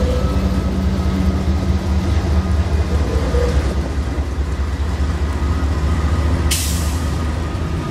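A consist of CSX diesel freight locomotives running as it rolls past, a steady heavy engine rumble with some held tones over it. A short, sharp burst of air hiss, typical of an air release, comes about six and a half seconds in.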